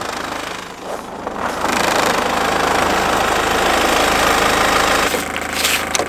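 Car engine idling with the bonnet open, a steady hum that grows louder about two seconds in; its deepest part drops away about five seconds in, followed by a few light knocks near the end.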